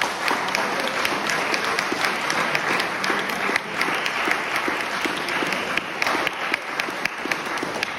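Applause: many hands clapping steadily, with single sharp claps standing out.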